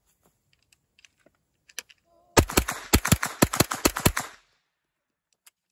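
CZ Scorpion EVO 3 fired in a quick string of about a dozen shots in under two seconds, roughly six a second. The gun has a stronger, 125% recoil spring fitted to smooth the bolt's cycling. A few faint handling clicks come before the shots.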